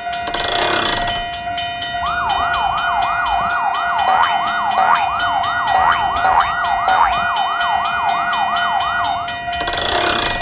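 Railroad crossing alarm sound effect: a crossing warning bell ringing rapidly and evenly, about five strokes a second. From about two seconds in until near the end, a yelping siren sweep, rising in pitch about three times a second, is layered over it.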